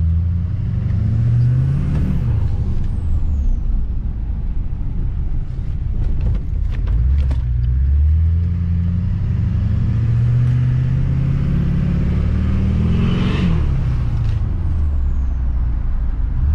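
A road vehicle's engine under way, pulling up in pitch and dropping back as it shifts: one climb that falls about two seconds in, then a long slow climb that drops again a few seconds before the end, over steady road noise.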